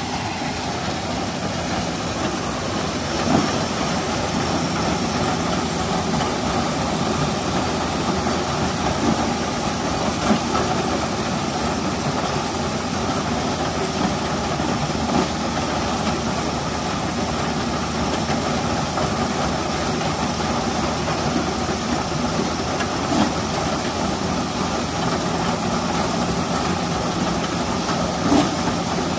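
John Deere No. 5 sheller running, driven by a half-scale Case 65 steam engine: a steady mechanical clatter with a few sharper knocks now and then.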